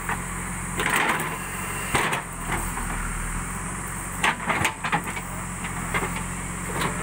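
JCB backhoe loader's diesel engine running steadily while the backhoe digs, with irregular knocks and scrapes from the bucket and arm working in the dry, stony soil.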